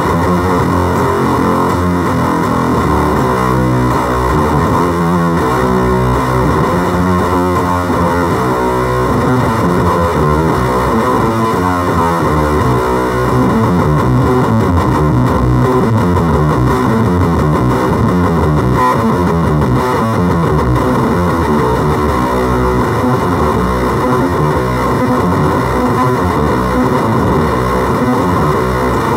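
Electric guitar played through fuzz pedals, with a FOWL Sounds Octagram Fuzz switched on, into a small amplifier. A continuous run of fuzzy, distorted notes and chords that keep changing pitch.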